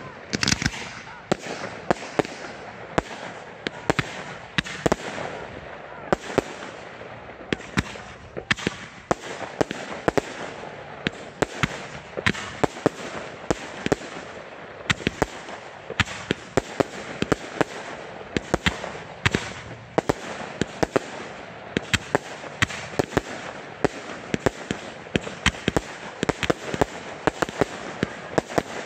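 Fireworks display fired without mortar shells: a rapid, continuous string of sharp bangs and pops from small aerial bursts, several a second, with crackling in between.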